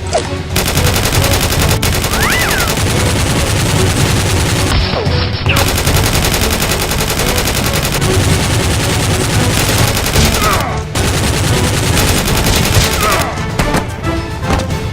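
Sustained rapid automatic gunfire, a dense run of shots with short breaks about five and eleven seconds in, over background music.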